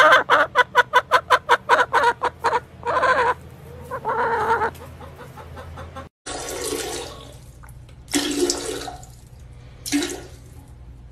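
A hen clucking close to the microphone in a fast run of short clucks, about eight a second, then giving two longer, drawn-out calls. After a break, three short rushing, hissing bursts of noise follow, each under a second.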